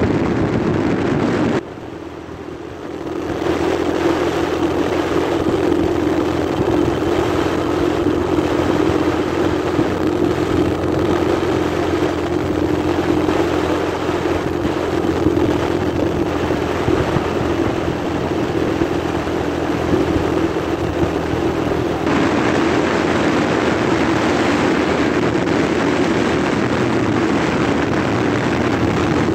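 A motor vehicle running along a road at steady speed: a steady engine drone under a rushing noise. The sound drops suddenly about two seconds in and comes back a second or so later; about three-quarters of the way through, the low engine tones fade and the rushing grows brighter.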